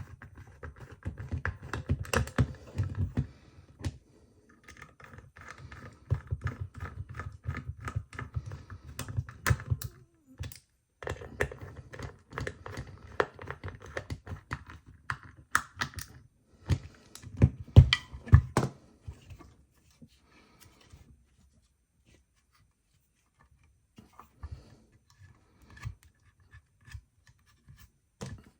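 Irregular clicking, tapping and rattling of small hardware as the guitar pedal's metal enclosure and parts are handled and closed up. The clicks come thick and fast for most of the stretch, then thin out to a few faint taps.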